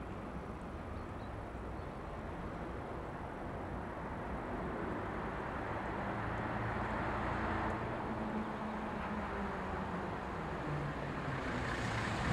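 Diesel locomotive hauling a long freight train as it approaches: a steady engine drone with rumbling, growing gradually louder.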